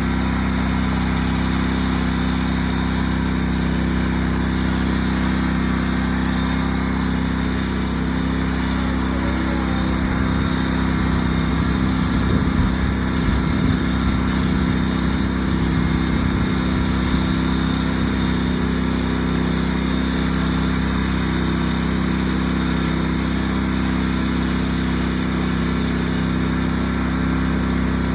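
Riding lawn mower engine running steadily at mowing speed.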